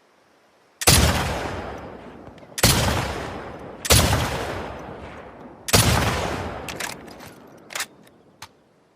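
M14 rifle firing four single shots, spaced unevenly over about five seconds, each with a long echoing tail. Near the end come a few fainter sharp clicks.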